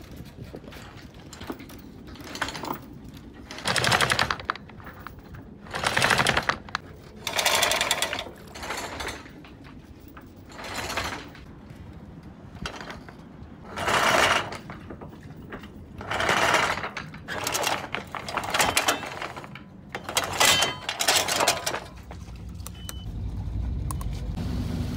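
Anchor chain being hauled in by hand, its links rattling over the deck in a dozen or so separate pulls about every one to two seconds. A steady low hum comes up near the end.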